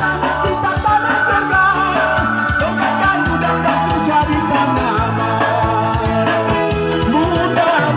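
A man singing into a microphone over amplified instrumental backing with a steady beat.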